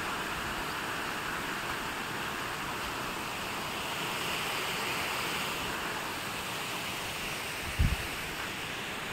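Steady rushing hiss of water, with a brief low double thump near the end.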